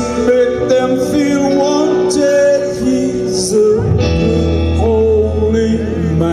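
Live rock band playing an instrumental passage between sung lines, heard from the crowd: a bending melodic lead line over held keyboard chords, with the bass and drums coming in fuller about four seconds in.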